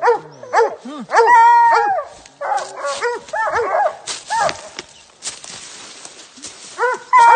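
Coonhounds barking treed at a raccoon: short arched barks and overlapping chops, with a long drawn-out bawl about a second in. They go quieter past the middle, and another long bawl starts at the very end.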